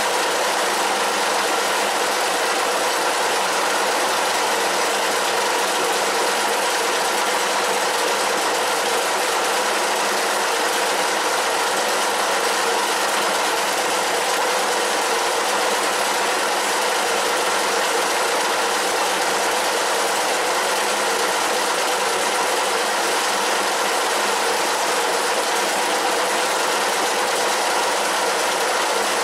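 1K62 screw-cutting lathe running steadily with a whirring gear whine while a drill in the tailstock chuck bores into the spinning hexagon bar stock.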